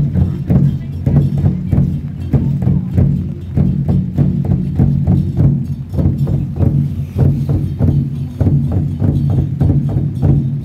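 A troupe of procession drums on a line of carts, large barrel drums beaten with sticks by many drummers together in a fast, steady beat.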